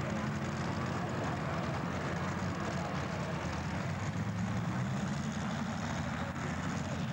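Engine of a tractor-pulling tractor idling steadily: a low, even rumble with no revving.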